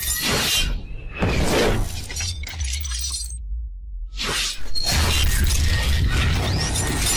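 Cinematic logo-intro sound effects: noisy sweeping hits with a shattering, breaking quality over a deep bass rumble. The highs drop away briefly a little past three seconds in, then a sudden loud hit comes in about four seconds in and the effects carry on.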